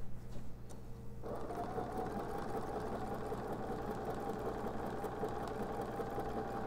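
Bernina 780 sewing machine quilting a serpentine stitch through a quilt with a walking foot. It is paused for about the first second, then starts up and runs at a steady speed.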